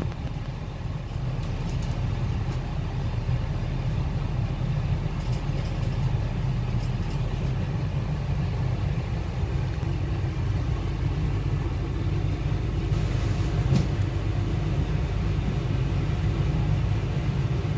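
Diesel engine of a Northern Ireland Railways Class 4000 (C4K) diesel multiple unit running with a steady low rumble, heard from inside the carriage. A single sharp click comes about three-quarters of the way through.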